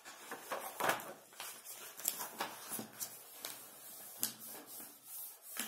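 Quiet, irregular rustles and light taps of paper being handled, with a sharper click about four seconds in.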